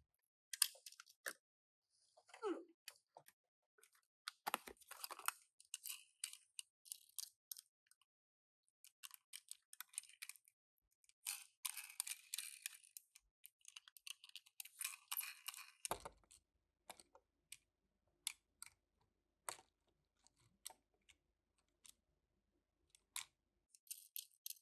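Faint, irregular crinkling of packaging with scattered small plastic clicks and taps, as toy cars and their boxes are handled during unboxing. The longest stretch of crinkling comes in the middle.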